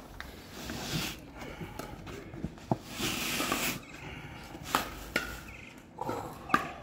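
Felt-back TPO roof membrane being peeled by hand off the plywood roof deck: a tearing rasp about three seconds in, with scattered clicks and snaps as the fleece backing pulls free of the deck.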